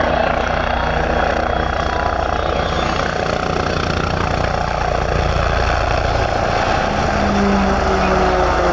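Aerobatic helicopter's rotor and turbine engine running steadily during a display flight. Near the end its tones slide down in pitch as it passes by.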